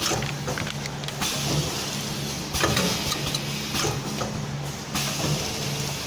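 Sachet packing and sealing machine running: a steady motor hum, with a burst of hissing noise roughly every second and a half as it cycles.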